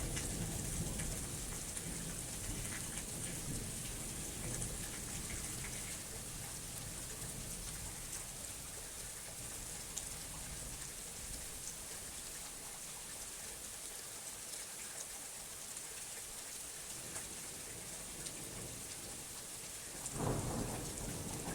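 Steady rain falling, with a low thunder rumble in the first few seconds that fades away. A fresh thunderclap breaks in near the end.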